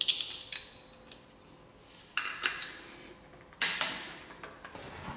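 Metallic clinks and clicks of a ratchet and socket extension going onto and turning the bolts of an engine pulley, in several short bursts, the loudest about two thirds of the way through.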